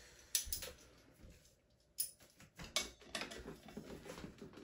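A 15 mm socket wrench working the front axle nut of an electric kick scooter: a few separate light metal clicks and knocks, then a quicker run of small ticks in the second half.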